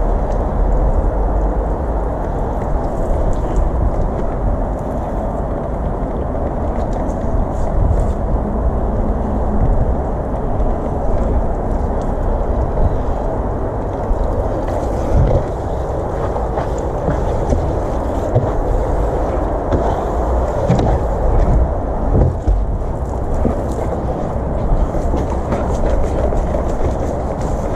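Water-fed pole brush scrubbing conservatory glass and uPVC frames. It makes a steady scrubbing sound over a constant low rumble, with faint scratches now and then.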